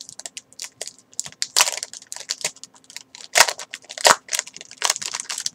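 The wrapper of a blind-packed desktop micro poster set being crinkled and torn open by hand, in quick irregular crackles with a few louder rustles about one and a half, three and a half and four seconds in.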